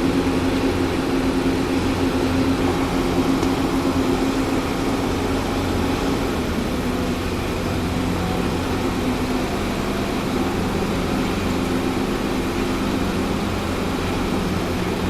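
Engine of a concrete mixer-pump machine running steadily, a constant drone that drops slightly in level about five seconds in.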